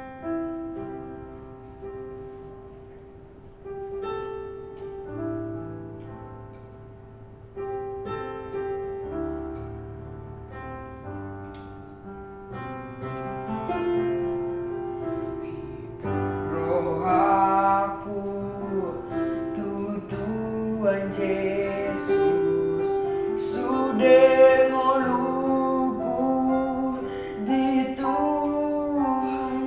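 Piano accompaniment plays a slow introduction, and about halfway through a boy's voice comes in singing over it with vibrato, growing louder toward the end.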